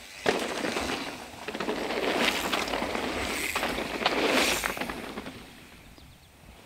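Mountain bike tyres crunching and rattling over a rough, rocky trail. The sound swells twice and fades away near the end.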